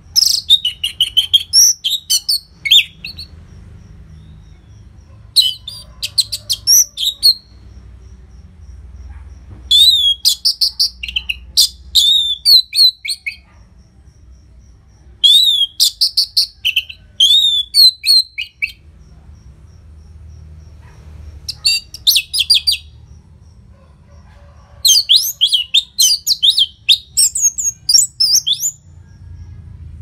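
Orange-headed thrush singing loud, fast phrases of high, varied whistled notes. There are six bursts, each one to three seconds long, with short pauses of two to three seconds between them.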